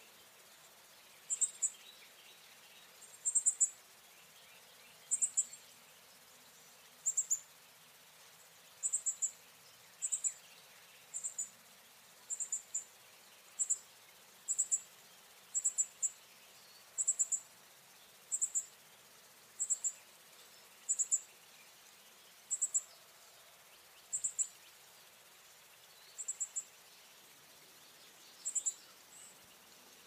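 Northern cardinal fledgling calling: short, high, thin notes, often two in quick succession, repeated about once every second or so.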